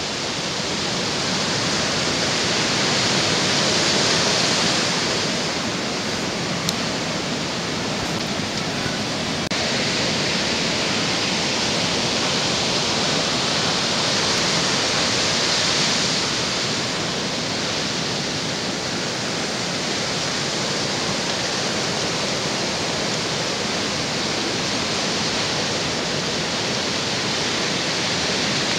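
Ocean surf breaking and washing up the beach: a steady rush of white water that swells louder twice as bigger waves come in.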